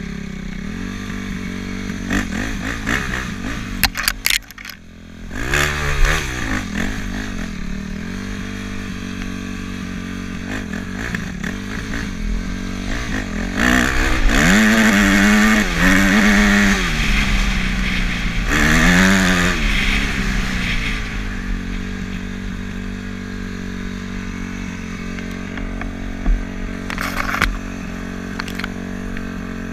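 Engine of a small off-road motorbike running under way over rough ground: a steady drone that drops off briefly, then revs up and down several times in quick succession around the middle before settling back to an even run, with a few sharp knocks and rattles from the ride.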